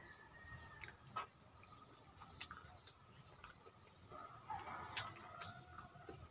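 Quiet eating sounds: a handful of sharp clicks and smacks from chewing and light taps at the plate, spread irregularly, the loudest about a second in and about five seconds in.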